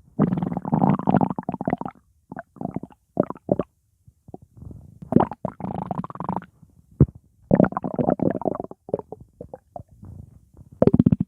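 Stomach growling: gurgling rumbles in irregular bursts, a couple lasting a second or more and several short ones, with brief silent gaps between them.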